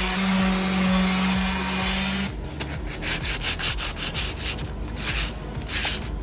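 Electric random orbital sander running on a fiberglass-and-resin putty patch, a steady whir with a hum that cuts off about two seconds in. Then hand sanding with a sanding pad, quick back-and-forth strokes over the fiberglass.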